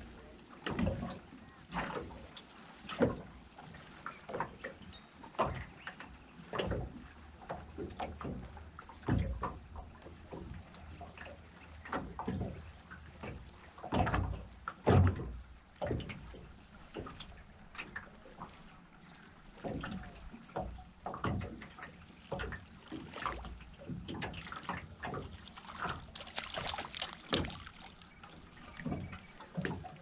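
Small waves lapping and slapping against the hull of an aluminium dinghy, a run of irregular knocks, some louder than others. A hissier, splashier stretch comes near the end.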